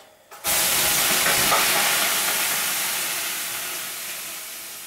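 Water thrown onto the hot stones of a sauna stove: a sudden loud hiss of steam (löyly) about half a second in, slowly fading.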